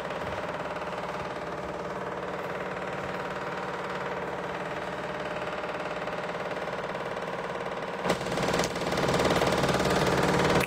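A steady machine hum, like a small motor or engine running, getting a little louder after a click about eight seconds in.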